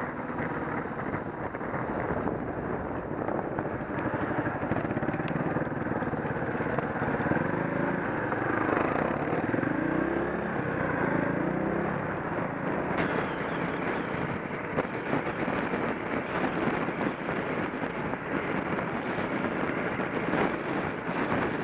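Onboard sound of a small trail motorcycle riding along, its engine running steadily under wind and road noise, the engine note rising and falling about halfway through.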